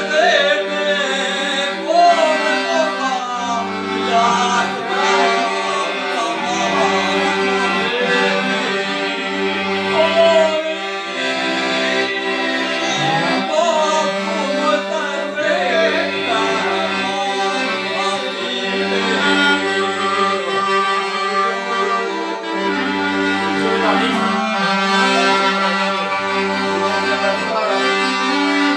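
Clarinet and accordion playing together, the clarinet carrying a wavering melody over held accordion chords and bass notes, with a man's voice singing along.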